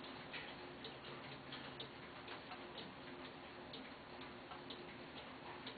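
Faint clock ticking at a steady pace of about two ticks a second, over a low steady hum.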